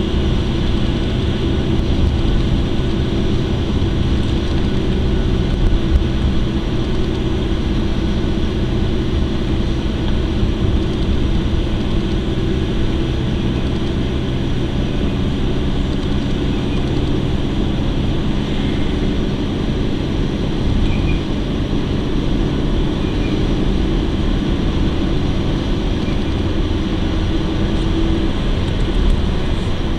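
Steady engine hum and road noise of a car being driven, heard from inside the cabin.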